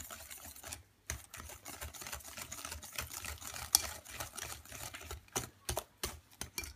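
Wire whisk beating eggs and sugar in a ceramic bowl, its wires clicking and tapping irregularly against the bowl, with a brief pause about a second in.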